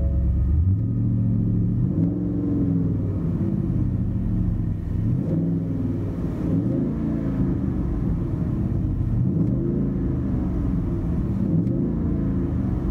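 The 6.2-litre V8 of a 2017 Ford F-250 with a true dual exhaust and Street Demon mufflers, heard from inside the cab while the truck is revved repeatedly in park. The pitch rises and falls with each rev, up to a little over 3,000 rpm, with a moderate tone inside.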